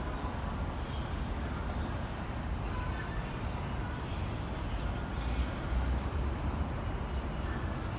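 Steady city background noise, a low rumble with a hiss over it, with a few faint short high chirps around the middle.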